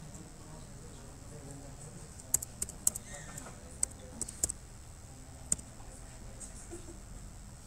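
Computer keyboard being typed: about a dozen sharp key clicks, in short runs, mostly between two and five and a half seconds in, over a low steady room hum.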